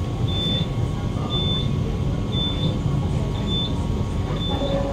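Five short high electronic beeps, about one a second, from the door warning beeper of a Kawasaki–CRRC Qingdao Sifang C151B train car, with the doors open at the platform. Under them runs the car's steady low hum.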